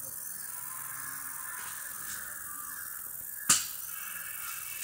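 Steady, high insect chorus holding one narrow pitch band, with a single sharp click about three and a half seconds in.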